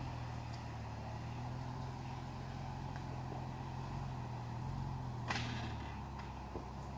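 Jeep Wrangler engine running at low revs as it crawls slowly over rocks, a steady low drone. A sharp click about five seconds in.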